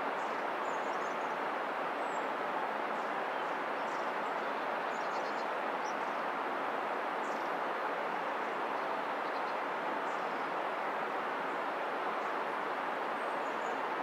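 Steady rushing of flowing river water, with small birds chirping and trilling faintly now and then above it.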